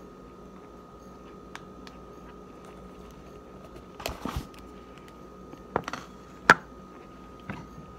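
Plastic cornstarch container being handled and its lid worked: a few scattered knocks and clicks, with a short cluster around four seconds in and the sharpest click about six and a half seconds in. A faint steady hum runs underneath.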